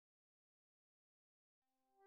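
Near silence. In the last moment a sustained chord of several held notes begins to fade in, still very faint.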